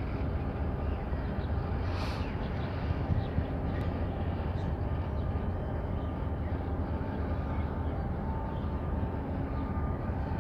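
Steady low rumble of harbour ambience with a faint, even machinery hum, and a brief hiss about two seconds in.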